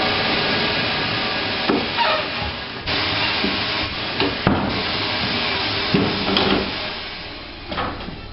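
Workshop noise during a motorcycle rear tyre change: a loud steady hiss, with several sharp knocks of tools on the wheel.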